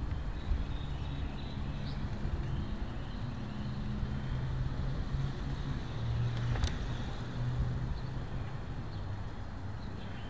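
Wind and road rumble on the camera of a moving bicycle, with a low hum that shifts in pitch and faint bird chirps; one sharp click about six and a half seconds in.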